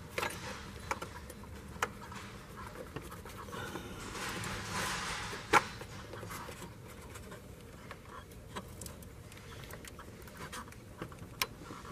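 Faint handling noises as the ribbed supercharger drive belt is worked onto its pulleys by hand: scattered light clicks and rubbing, a soft hissing swell about four to five seconds in, and a sharper click soon after.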